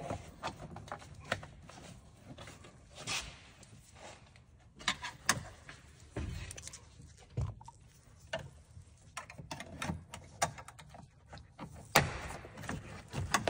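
Plastic interior trim panel being pried off its retaining clips with a hand tool: scattered clicks, knocks and plastic rattles as the clips work loose, with the loudest knock near the end.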